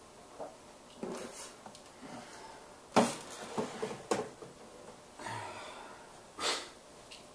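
Scattered knocks and handling noises in a small room, the loudest a single sharp knock about three seconds in, followed by a few lighter clicks and two short rustling bursts.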